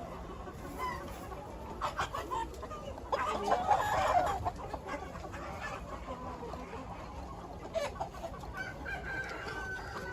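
A flock of chickens clucking and calling, with a louder flurry of calls about three to four seconds in and a long, drawn-out call near the end.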